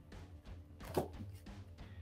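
Faint background music, with one soft knock about a second in from the rigid plastic photo holder being turned over in the hands.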